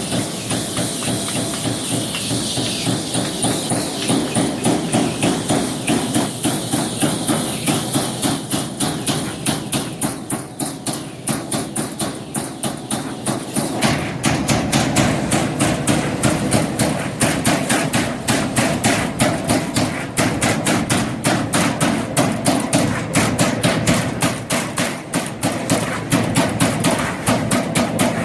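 30-ton CNC turret punch press punching sheet metal in a rapid, steady run of strokes, several hits a second.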